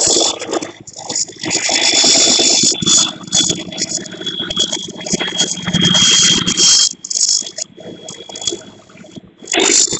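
Tracked rice combine harvester running as it crawls over the field: a rattling, hissing machine noise that surges and eases, with a thin steady high whine over it.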